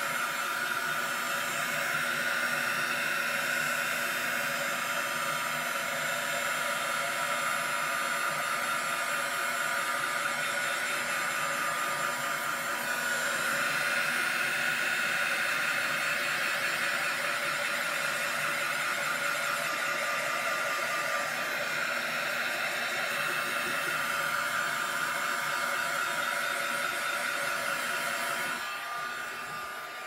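Hand-held hair dryer running steadily, blowing air across wet acrylic paint on a canvas to spread it and open up cells. It is a constant rushing whir that eases slightly near the end.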